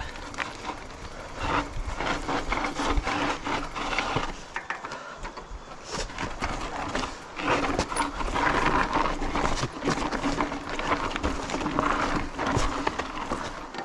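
Silverback Stride SX 29 hardtail mountain bike ridden over a rough dirt trail: a dense, irregular clatter and rattle of the bike over bumps, over a steady rush of tyre noise, louder in patches.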